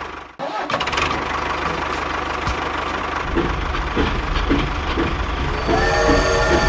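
A small engine running steadily with a fast low throb, cutting out briefly just after the start and then running on. Near the end, pitched notes that bend up and down come in over it.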